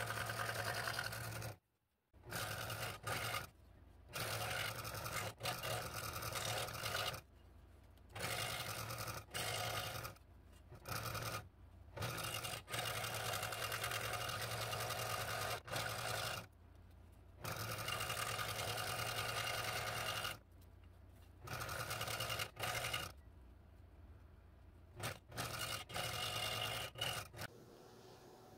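Scroll saw running, its blade cutting thin eighth-inch wood in fine fretwork, a steady fast reciprocating hum. The sound breaks off abruptly into short silent gaps about ten times, and it stops shortly before the end.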